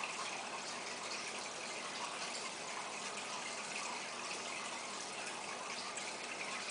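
Steady running, splashing water of an aquarium's water circulation, an even rushing hiss with no breaks.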